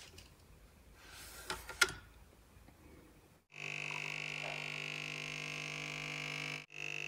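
Faint clicks as the capsule espresso machine is switched on, then its pump buzzing steadily while coffee pours into the cup. The buzz cuts out briefly near the end and starts again.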